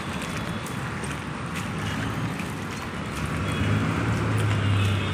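Footsteps in flip-flops wading through shallow floodwater on a street, sloshing and splashing, over a low steady hum that grows louder near the end.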